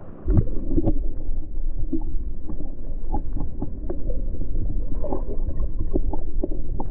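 Muffled water sound, as heard underwater: a low rumble and gurgle with many irregular knocks and pops.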